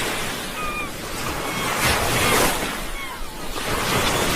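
Sea waves washing in, swelling to a louder surge about two seconds in, with short high chirps over the surf.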